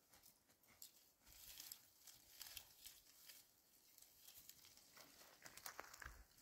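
Near silence, with faint scattered rustles and small ticks.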